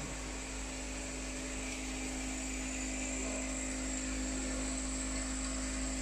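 Vibratory bowl feeder of a nylon cable-tie strapping machine running, a steady hum with a constant high hiss.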